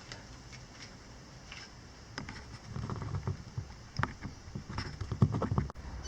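Irregular knocks and clicks, sparse at first and then more frequent and louder from about two seconds in, cutting off abruptly near the end.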